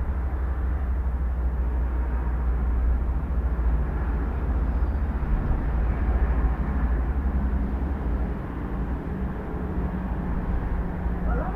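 Steady, deep roar of the Cumbre Vieja volcano erupting, a continuous low rumble. A rooster begins to crow right at the end.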